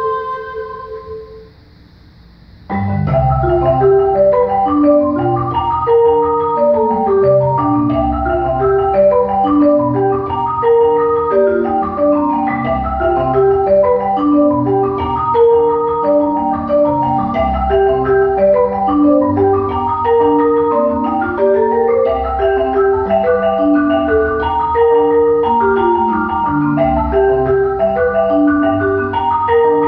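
A sung note dies away in the first second, then, after a short pause, a marimba played by two people with four mallets each comes in abruptly about three seconds in: a dense, running pattern of ringing wooden notes with deep bass notes underneath, steady to the end.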